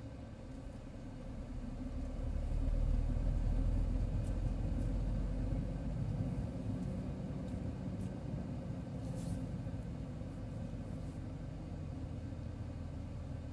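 Low rumble of a vehicle's engine and tyres as it is driven slowly. It swells about two seconds in and eases back after about six seconds.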